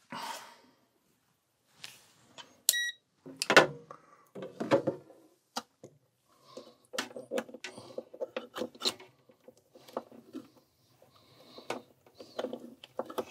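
Fabric rustling and plastic clicks from handling close to the microphone as multimeter test leads are fumbled with, with one short, high electronic beep about two and a half seconds in.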